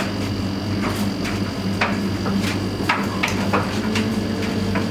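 Siemens front-loading washing machine running, its drum turning with a steady low motor hum while something hard tumbles inside and knocks against the drum irregularly, about twice a second. A faint whine joins the hum about three and a half seconds in.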